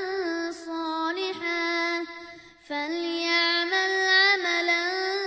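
A child's voice reciting the Quran in melodic tajweed, drawing out long held notes that waver in pitch, with a short pause for breath about halfway through.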